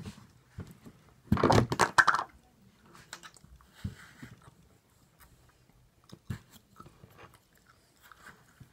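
Kinetic sand pressed and worked by hand: a loud crunchy crackle lasting about a second near the start, then soft scattered crackles and ticks as the sand is handled.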